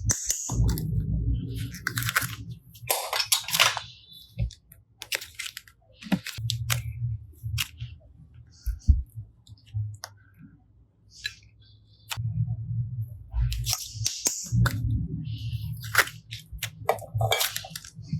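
Hands squishing and pressing slime: irregular sticky clicks and pops in uneven bursts, with short pauses between.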